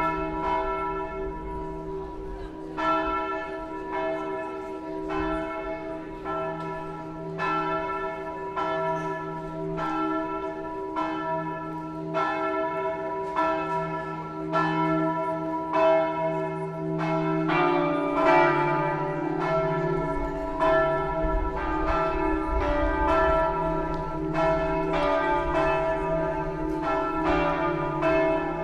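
Church tower bells ringing the noon peal, with strikes about every three-quarters of a second over a steady hum. About two-thirds of the way in, a lower bell joins and the strikes come thicker.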